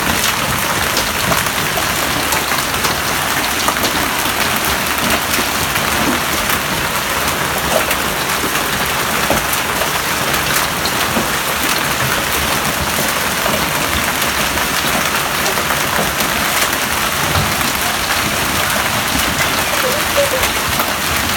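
Heavy hailstorm of golf-ball-size hailstones pelting down, a dense, steady clatter of countless sharp impacts over a hiss of falling ice and rain.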